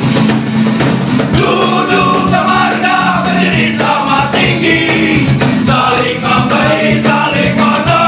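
A live band playing: a man singing over strummed acoustic guitars and an electric bass, with a steady beat.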